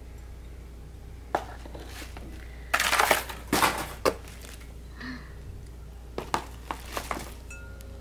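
Bubble wrap and cardboard packing rustling and crinkling as glass bowls are handled and lifted out of their box, with a loud burst of crinkling about three seconds in and a few short, light knocks scattered through.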